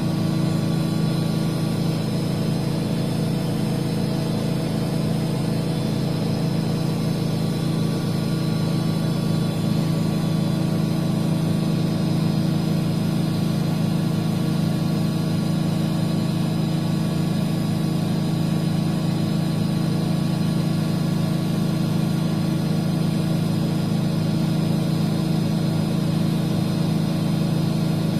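Miele washing machine running steadily: a constant low hum with several steady higher tones above it and no change in speed.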